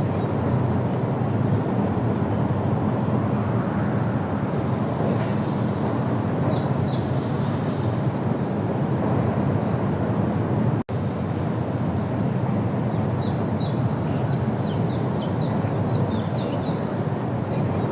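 Outdoor field recording: a steady low rumble with a small bird's rapid series of short, falling high chirps heard twice, around a third of the way in and again for several seconds near the end. The sound cuts out for an instant in the middle.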